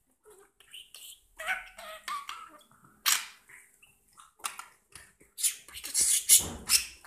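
Budgerigar chattering and warbling in short wavering notes, with a run of loud, scratchy, noisy sounds and a few sharp clicks near the end.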